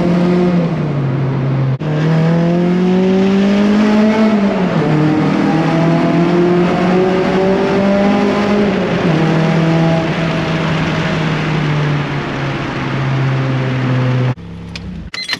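Interior sound of a G23BK-swapped Honda Civic's four-cylinder engine and 3-inch stainless exhaust (resonator, J-pipe and muffler) under way, its note holding steady, then climbing and falling with the revs, with a short break about two seconds in. The exhaust leak at the V-band flange is fixed, and the cabin drone is gone. The engine sound drops away abruptly near the end.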